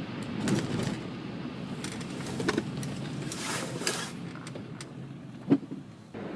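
Steady road and engine noise inside a moving car's cabin, with scattered clicks and knocks and one sharp knock about five and a half seconds in.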